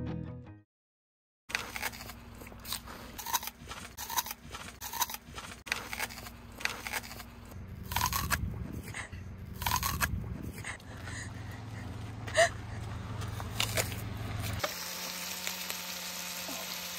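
A fresh apple being bitten and chewed close up: a string of crisp crunches. Near the end it gives way to the steady sizzle of sliced peppers and onions frying in a pan.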